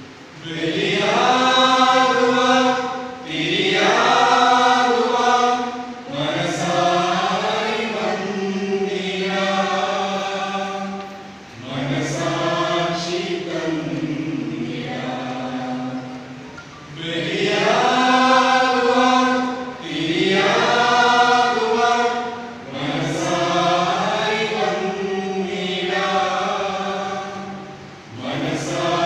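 Mixed choir of men and women singing unaccompanied in sustained phrases, each a few seconds long with a brief breath between.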